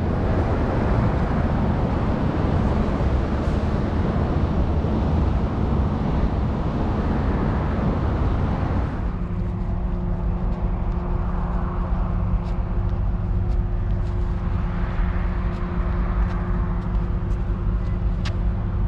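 Road and engine noise heard from inside a moving vehicle. About nine seconds in it settles into a steadier, lower hum with a low steady tone, with a few faint clicks near the end.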